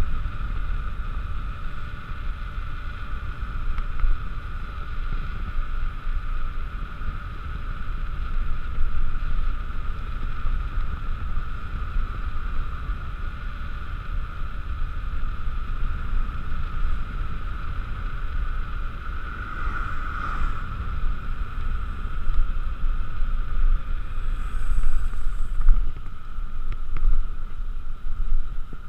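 Wind buffeting a GoPro's microphone as a mountain bike descends a paved road at speed: a heavy, gusting low rumble with the steady hum of the tyres rolling on the asphalt. The hum swells briefly about two-thirds of the way through.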